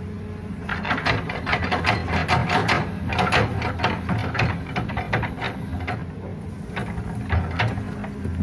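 Sand and stones pouring from a hydraulic excavator's bucket into the steel bed of an Isuzu Elf dump truck: a dense clatter of stones for about five seconds, then a few scattered knocks. Under it, diesel engines run with a steady low drone.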